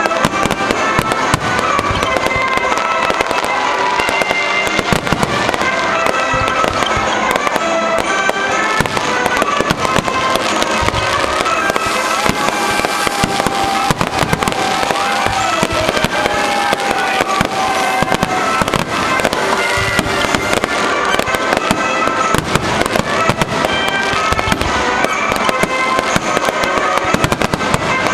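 Aerial fireworks display in a dense, continuous barrage: rapid overlapping shell bursts and crackle with no let-up, and music playing beneath them.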